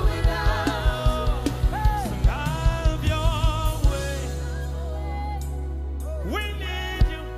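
Live gospel worship song: a group of singers and a lead vocalist singing over a band. A steady low beat drops out about four seconds in, leaving a held bass under the voices, and there is a single sharp hit near the end.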